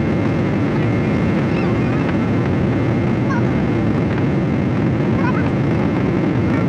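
Steady cabin roar inside a Boeing 777-200 airliner in flight: engine and airflow noise, with a thin steady high tone over it.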